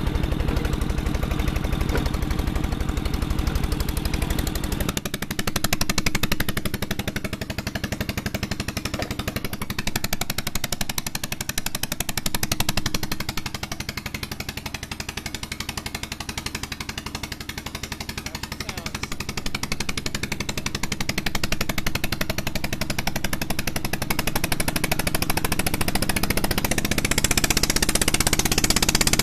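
1952 Wisconsin AHHD large single-cylinder, air-cooled gasoline engine running at low speed through a retrofitted muffler, driving a Devilbiss four-cylinder two-stage compressor pump, with a rapid, even knocking beat. The deepest part of the sound weakens about five seconds in, and more hiss builds near the end.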